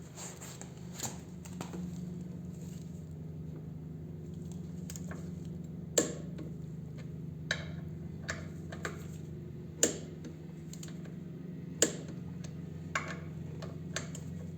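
Click-type torque wrench tightening brake caliper bolts to 35 ft-lb: several sharp clicks a second or two apart, the loudest about six, ten and twelve seconds in. The clicks sound over a steady low hum.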